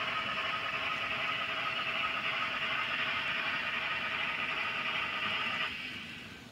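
N scale model passenger cars rolling along the track: a steady whirring rattle of small metal wheels on rail. It drops off abruptly about a second before the end and turns to a quieter hiss.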